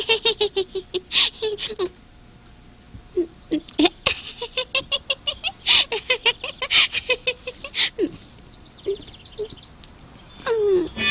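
A young woman laughing heartily in two long runs of quick ha-ha pulses, the second from about three seconds in until about eight seconds in. A short sliding vocal sound comes near the end.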